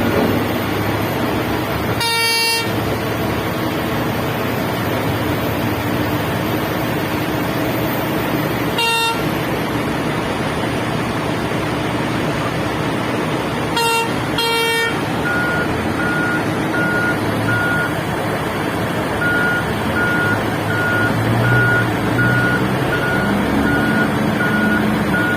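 Heavy mining excavator and haul truck diesel engines running steadily, with a horn sounded: one blast about 2 s in, a short one about 9 s in, and two quick ones about 14 s in. A reversing alarm then beeps steadily from about halfway through.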